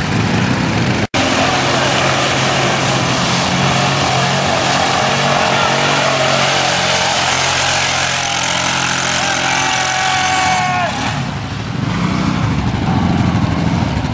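ATV engines running, one revving hard with a wavering pitch as its wheels spin in deep mud, the sign of a quad bogged down and fighting for grip. The revving drops off about eleven seconds in.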